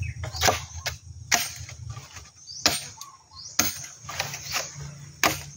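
A machete chopping into a dry bamboo pole: a series of sharp, irregular cuts roughly a second apart.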